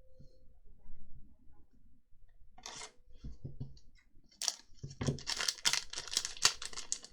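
Foil booster pack wrapper crinkling as it is torn open and handled, after a few soft clicks and a short rustle of cards being handled. The crinkling starts about four and a half seconds in and carries on.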